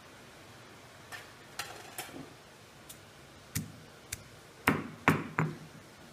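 Chunks of ginger dropped into a granite stone mortar: about ten irregular taps and clicks on the stone, growing louder, with three heavier knocks near the end.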